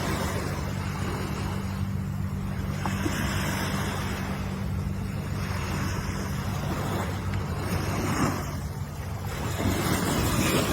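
Ocean waves washing in, the rush of surf swelling and ebbing every few seconds, over a steady low hum.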